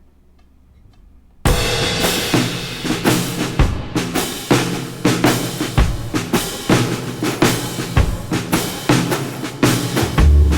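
Background music with a steady drum-kit beat, starting suddenly about a second and a half in after a quiet opening.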